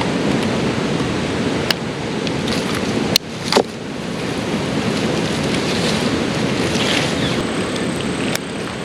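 Steady rushing of flowing creek water, with a few brief sharp knocks.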